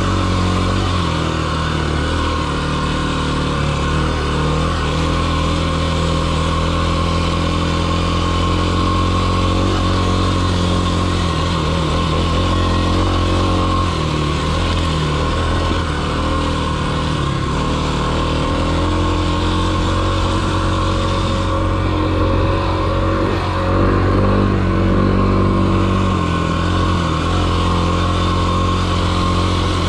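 Kawasaki KLX300 single-cylinder four-stroke dirt bike engine running under way, its revs rising and falling again and again with the throttle.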